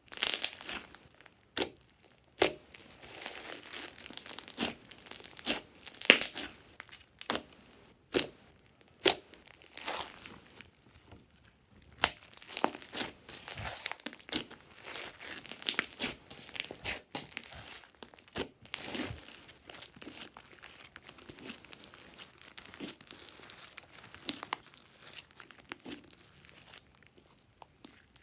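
Hands squishing, pressing and folding glossy slime studded with small foam beads: irregular wet clicks, pops and crackles as the slime is squeezed and stretched.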